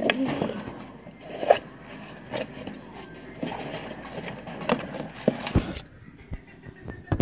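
Handling noise: scattered scrapes, rustles and short knocks of things being moved about on a desk, with a heavier thump about five and a half seconds in.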